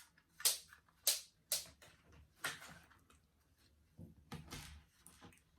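Plastic clicks and scrapes of a toy spring-powered 6 mm BB rifle's magazine being pulled out and handled: about half a dozen sharp clicks, some with a short scrape, spread over several seconds.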